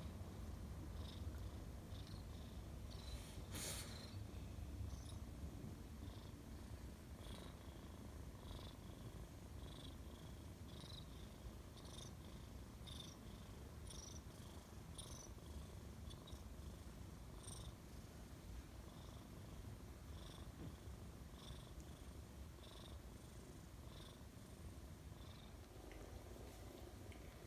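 A cat purring steadily, a low rumble, with faint light clicks about once a second.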